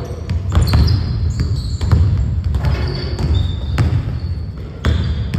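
Basketballs bouncing on a hardwood gym floor, with repeated sharp thuds and short, high sneaker squeaks from players running, echoing in a large gym.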